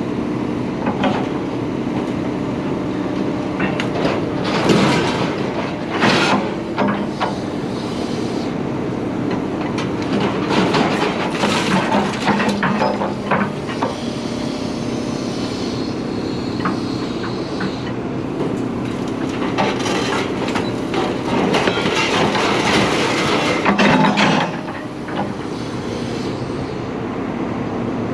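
Scrap metal clanking and clattering with irregular knocks and bangs as it is unloaded, over a steady engine hum.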